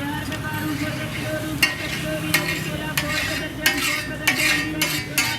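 Metal spatula stirring and scraping meat in a karahi while it fries and sizzles, with sharp metallic strikes of the spatula against the pan about every half second in the second half.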